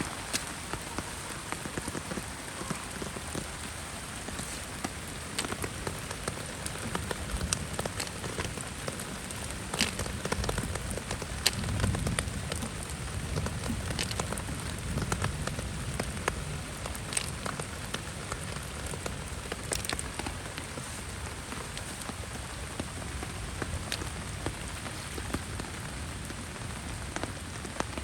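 Heavy rain falling steadily, with many sharp individual drop hits ticking through it. A low rumbling swell rises and fades around the middle.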